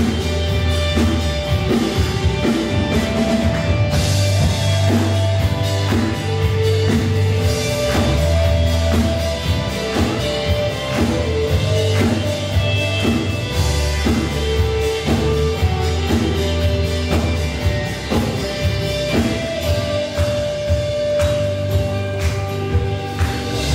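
Church worship band playing a song, with drum kit keeping a steady beat under guitar and deep bass notes that change every couple of seconds.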